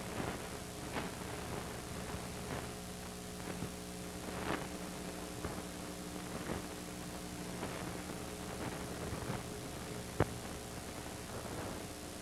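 Steady electrical hum and hiss with faint pops about once a second and one sharper click near the end. This is the background noise of an old film transfer whose soundtrack is missing here, with no dialogue or music.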